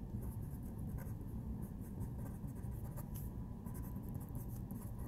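Pen writing on paper: a quick run of short scratchy strokes as a word is printed out by hand.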